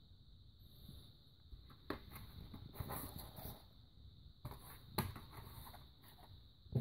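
Faint handling noise of a hand-held camera being moved: a few sharp knocks (about two seconds in, about five seconds in and a louder one at the end) and some rustling, over a steady high-pitched whine.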